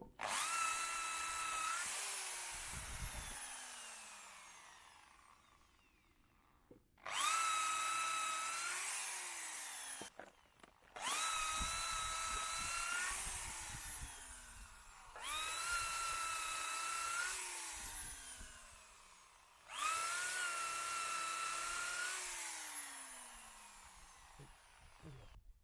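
Electric drill boring holes in hardwood logs for shiitake spawn plugs. It runs five times, each time at full speed for about two seconds, then its pitch falls as the motor winds down after the trigger is released.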